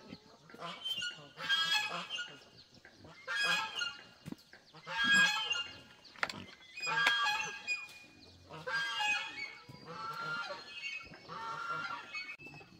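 Farm animals calling again and again: about seven or eight loud pitched cries, each under a second long, coming roughly once every two seconds.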